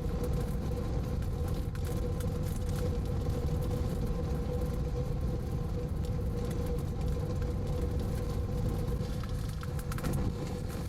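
Steady low rumble of wind and vehicle noise from a storm chase car, with a constant mid-pitched hum and scattered sharp clicks.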